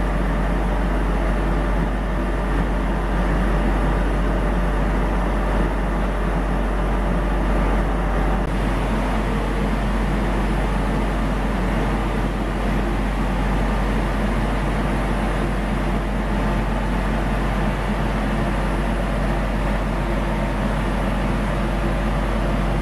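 Gildemeister CTX 420 linear CNC lathe, powered up and running steadily: a constant low hum under an even mechanical drone.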